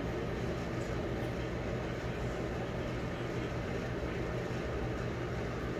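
A steady low hum with an even hiss, the sound of a running machine such as a fan or air conditioner in the room.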